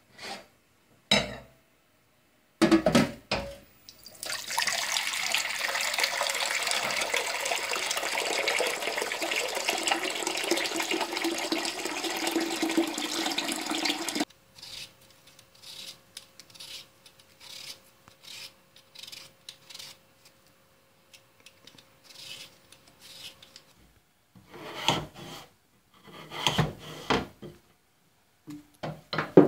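Kitchen tap running into a glass bowl in a stainless steel sink for about ten seconds, after a few clicks of the tap handle, then shut off abruptly. Scattered short knocks and scrapes follow near the end.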